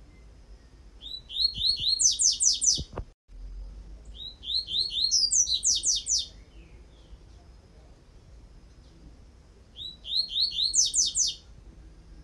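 Double-collared seedeater (coleiro) singing its 'tui-tui' song type: three short phrases, each a few quick lower notes followed by a fast run of higher notes.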